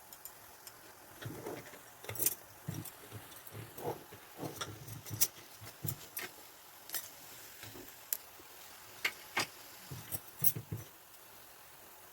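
Kitchen utensils clinking and knocking: a dozen or so irregular sharp clicks, some with dull thuds, over a faint steady background.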